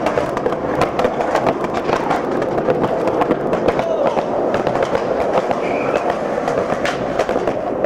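Skateboard wheels rolling over stone pavement: a steady gritty rolling noise dotted with frequent sharp clicks.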